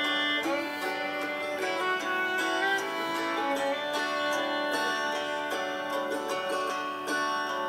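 Instrumental background music, led by plucked strings.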